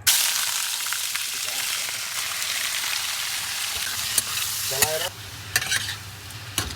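Food sizzling loudly in hot oil in a cooking pan as it is stirred, with a few sharp clicks of the spoon against the pan. The sizzle starts suddenly and eases about five seconds in.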